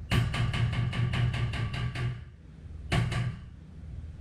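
Body hammer tapping the dented steel side panel of a Toyota Tundra by the rear wheel arch, beating out the dent by hand. The blows come quickly and evenly, about six a second, each ringing briefly. They run for two seconds, stop, and resume about three seconds in with a short run of three.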